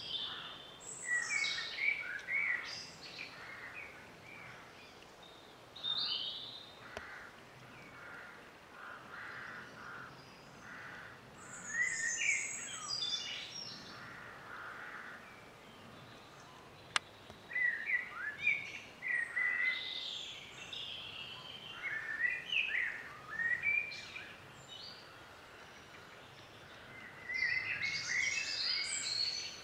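Songbirds singing in repeated short phrases of quick, varied chirps and warbles, with pauses between bursts. One sharp click about seventeen seconds in.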